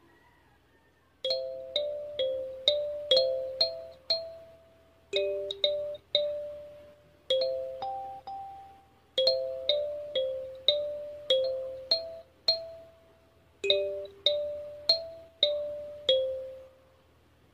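Hluru 8-key kalimba played as a simple melody: single plucked metal tines ring out one note at a time in short phrases with brief pauses between them. The last note fades away near the end.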